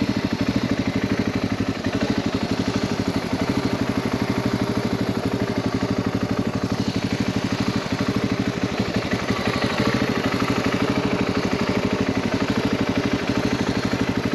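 Dual-sport motorcycle engine running steadily with an even, fast pulsing beat, without revving.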